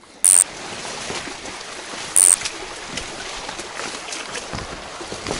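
Shallow taiga stream running over a riffle, a steady rush of water with small ticks. It is broken twice, about a quarter second and two seconds in, by a short, loud, high-pitched swish.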